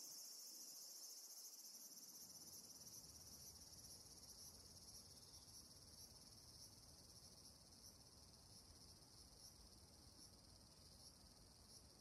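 Faint, steady high-pitched insect chorus with a light regular pulsing, over quiet outdoor background.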